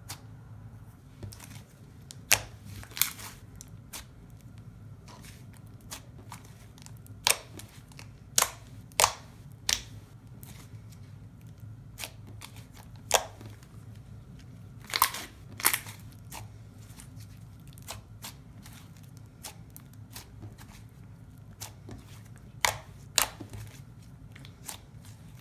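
Soft clay slime being squished and stretched by hand, with sharp pops and clicks as its air bubbles burst, about fifteen of them at irregular intervals.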